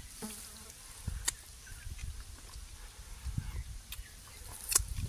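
Quiet hand-eating of fried catfish: a few sharp small clicks and mouth smacks as the fish is picked apart and chewed, with a fly buzzing now and then.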